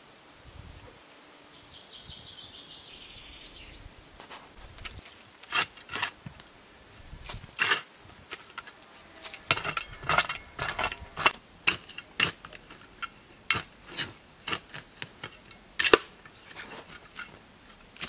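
Folding shovel digging into stony soil: irregular sharp strikes and scrapes of the metal blade against dirt and rocks, with metallic clinks, starting about five seconds in. Before that, only faint outdoor background.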